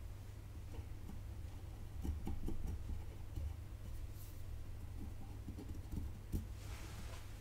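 Faint scratches and light clicks of soldering tools working on a circuit board, over a steady low hum, with a short hiss near the end.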